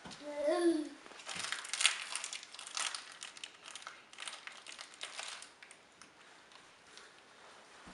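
A toddler's short babble, then a plastic candy wrapper crinkling over and over for a few seconds as it is handled and stuffed into a hoodie pocket, dying away near the end.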